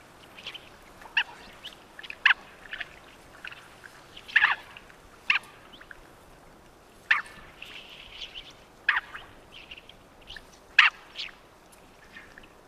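Mandarin duck calling: a series of short calls, about seven loud ones coming irregularly every one to two seconds, with fainter calls in between.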